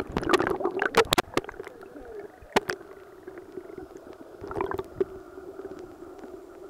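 Camera microphone plunged into seawater: splashing and sharp knocks of water against the camera in the first second and a half, then the muffled, gurgling underwater sound around the submerged camera, with scattered clicks and a brief swell of bubbling near the five-second mark.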